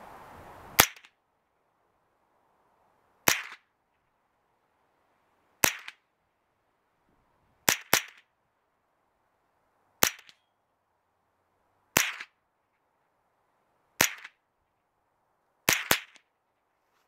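Kriss Defiance DMK22 .22LR semi-automatic rifle firing ten shots of cheap Remington Golden Bullet ammunition, mostly about two seconds apart, with two pairs fired in quick succession. Each round cycles the action.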